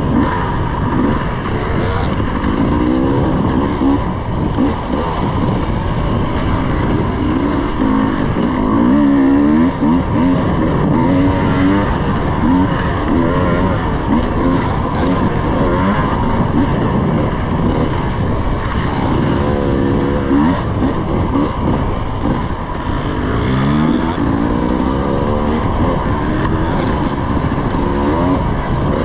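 Husqvarna 300 two-stroke dirt bike engine being ridden, its pitch rising and falling over and over as the throttle is opened and rolled off, with steady wind noise on the microphone.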